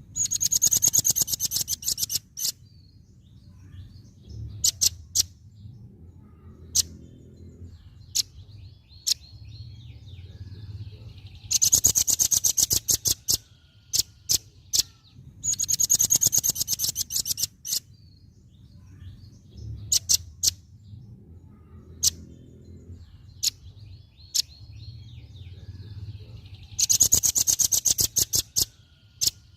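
Velvet-fronted nuthatch calling: four rapid, very high chattering trills of about two seconds each, with single sharp chips between them. A faint low hum runs underneath.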